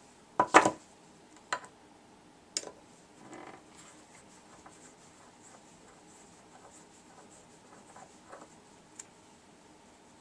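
Small parts of a Mikuni fuel pump being handled during disassembly: a cluster of sharp clicks about half a second in, then two more single clicks a second apart, a brief rustle, and faint scattered ticks after that.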